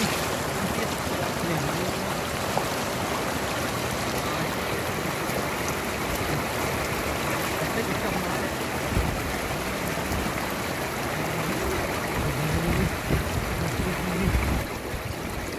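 Shallow floodwater rushing and splashing over a dirt road, with hands splashing as they plunge and scoop through the water. A few low thumps come in the second half.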